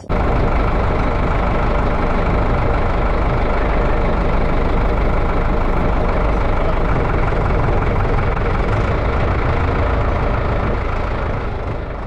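Sonalika tractor's diesel engine running steadily while the tractor drives, picked up close from the bonnet beside the exhaust stack. The sound eases slightly near the end.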